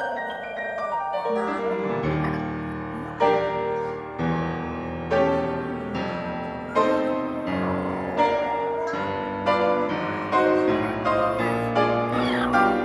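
Piano music, with notes and chords struck about every second over held notes.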